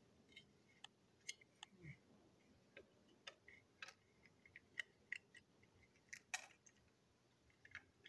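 Faint, scattered clicks and taps of small plastic parts being handled and fitted together while a TrackMaster toy train coach is reassembled, the sharpest click about six seconds in.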